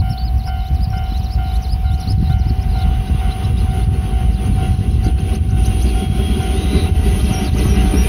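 Japanese level-crossing warning bell ringing in a steady, rapid repeat over a constant low rumble, with the noise of an approaching electric train building in the last couple of seconds.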